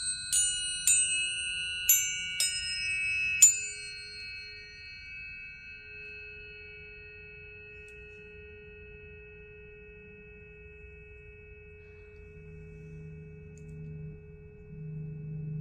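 Tuning forks struck one after another, five strikes in the first three and a half seconds. Their clear tones ring on together and slowly fade, and a lower steady tone comes in about six seconds in.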